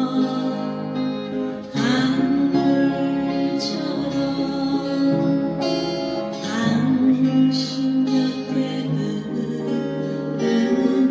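Upright piano played with both hands: a melody over sustained chords, with fresh chords struck several times.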